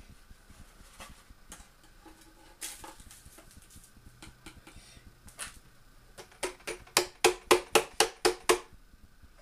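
Plastic blender jug being knocked about ten times in quick succession, roughly four a second, a little over six seconds in, to shake loose the oat-biscuit crumbs. Before that come faint clicks and rustling of crumbs being poured into a foil tray.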